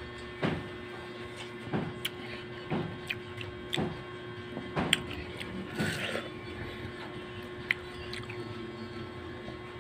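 Chewing watermelon right at the microphone: short wet crunching and smacking sounds about once a second. A steady low hum runs underneath.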